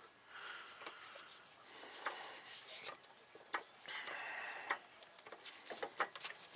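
Faint, scattered light clicks and taps of metal parts being handled under a car as the subframe is positioned.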